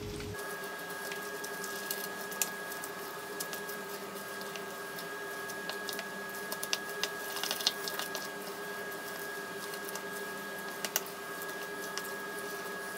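Wooden spoon working mashed potato and a bacon, corn and onion mixture together in a bowl: soft squishing with scattered light clicks of the spoon, over a steady background hum.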